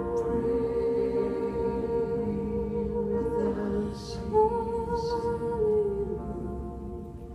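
Singers holding long notes into microphones over keyboard chords, the pitch stepping up once about halfway through before the music dies away near the end.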